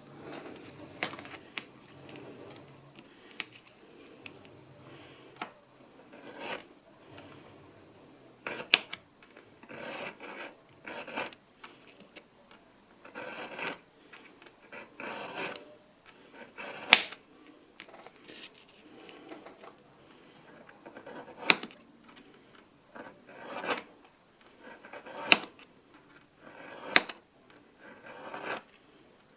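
Hand sanding of a metal pistol sight's base on sandpaper: irregular short scratchy rubbing strokes, taking down the thin rim left on the base so it fits the slide's dovetail. A few sharp clicks and taps come between strokes, the loudest about halfway through.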